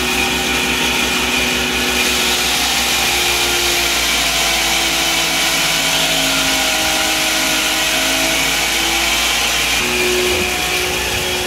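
Electric grain mill running steadily under load as grain is poured into its hopper from a bucket, grinding it into animal feed. The sound is a loud, even machine noise with a few steady tones that shift a little as the grain feeds in.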